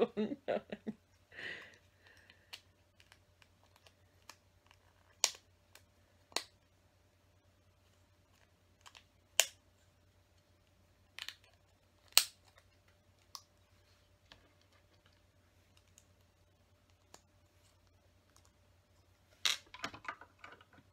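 LEGO plastic pieces clicking and tapping as a door frame and door are handled and pressed onto the model: scattered sharp clicks, often a second or more apart, growing denser near the end.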